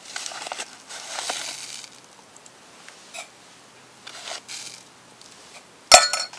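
Soft rustling and shuffling for the first two seconds, fainter later, then near the end a sharp clink of a metal spoon striking an enamel camping mug, ringing briefly.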